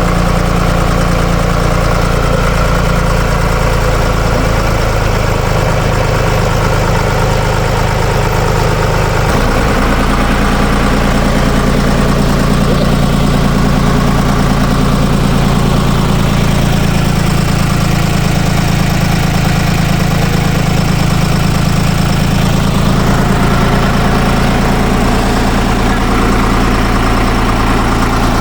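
Air-cooled three-cylinder Deutz diesel of a Ditch Witch trencher-backhoe running steadily. The engine note steps up slightly about nine seconds in.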